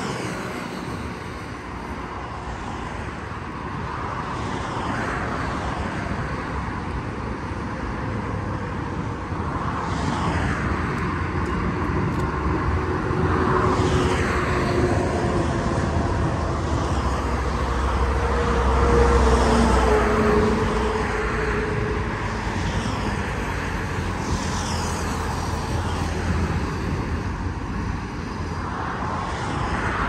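Outdoor road-traffic ambience: vehicles passing one after another on a nearby road over a steady low rumble. The loudest pass, with an audible engine tone, comes about two-thirds of the way through.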